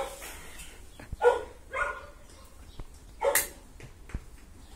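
Bodeguero Andaluz dog barking in short single barks, three of them spaced unevenly over a couple of seconds.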